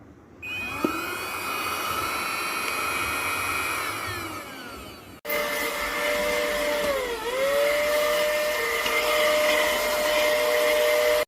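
JAMAY handheld cordless mini vacuum cleaner running with a steady high whine. It cuts off sharply about halfway, then runs again with a lower whine whose pitch dips briefly and comes back up.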